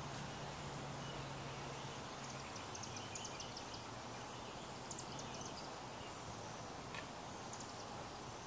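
Faint outdoor ambience: a steady hiss with a low hum, and three short bursts of quick, high chirps about two, five and seven and a half seconds in, with a single click near the end.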